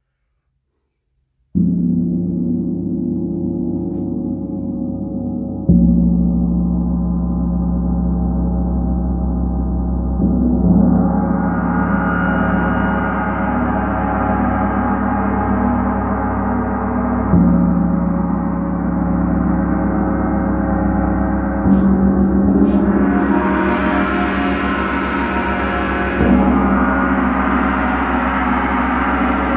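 Large hanging gong played with a soft, fluffy mallet: six strokes a few seconds apart, each laid over the ringing of the last, so the sound builds into a continuous wash that grows brighter as it goes on.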